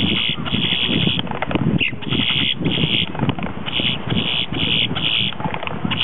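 A male grackle calling a rapid series of short, harsh notes, about eight in a row at roughly two a second, part of its singing display. A steady low rumble runs underneath.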